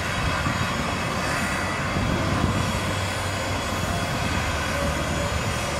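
4-8-2 steam locomotive easing slowly up to a flat wagon to couple during shunting, giving a steady rumble and hiss with no distinct chuffs.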